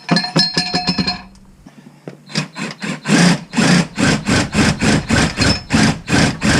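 Bauer 20V Hypermax 1/2-inch cordless impact wrench hammering on the lug nuts in short repeated bursts, about two a second, after about a second of quick metallic clicking and ringing.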